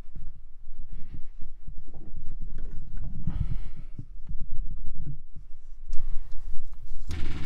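Low thumps, knocks and clicks of handling around the car's dashboard switch panel, then, about seven seconds in, the Jaguar Mark 2's engine suddenly starts turning over on the starter.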